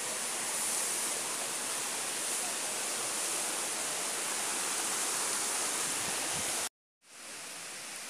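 Mountain river rushing under a wooden footbridge: a steady hiss of flowing water. The sound drops out for a moment about seven seconds in, then returns quieter.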